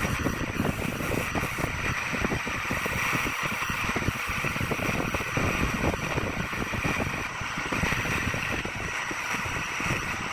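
Wood lathe running with a turning tool cutting the spinning wood: a steady high motor whine over a continuous rough, crackling cutting noise.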